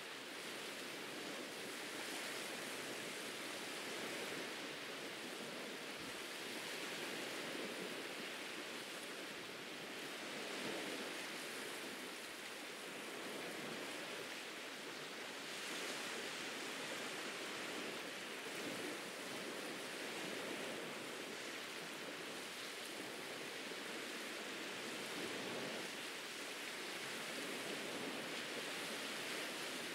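Ocean surf washing onto a beach: a steady hiss of water that swells and eases now and then.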